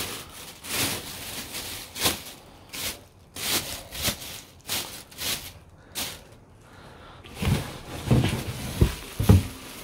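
Handling noises from unpacking and turning over a new car wheel: short rustles and scrapes about every two-thirds of a second, then duller knocks in the last two seconds.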